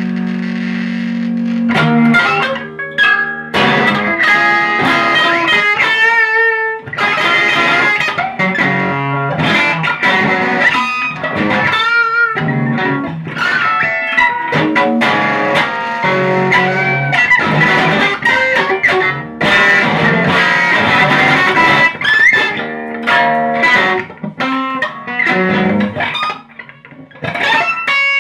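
Amplified hollow-body electric guitar played solo: a held low chord rings for the first couple of seconds, then gives way to fast, busy picked notes and chords with a few warbling string bends. It drops to quieter, sparser playing near the end.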